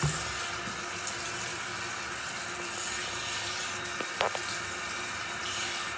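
Bathroom sink tap running in a steady hiss of water while she washes her face, with one short sharp sound about four seconds in.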